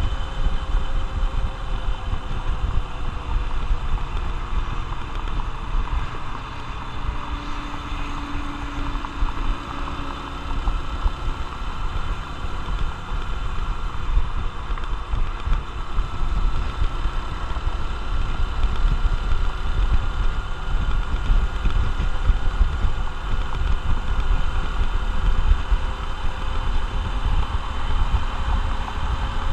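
Honda XR150L's single-cylinder four-stroke engine running steadily, its pitch drifting gently up and down, over a heavy low rumble.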